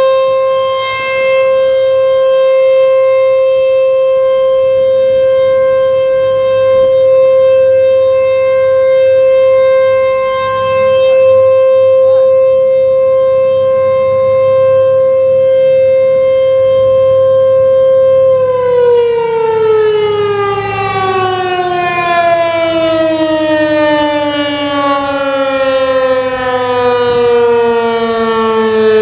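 American Signal T-128 rotating outdoor warning siren sounding a steady tone during a monthly test, its loudness swelling and fading slowly. About two-thirds of the way in it shuts off and winds down, the pitch falling steadily lower.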